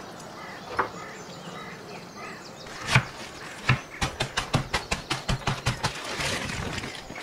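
Plastic bag of chopped spinach being squeezed and kneaded by hand: a quick run of sharp crinkling crackles, then a denser rustle near the end. A single louder knock comes about three seconds in.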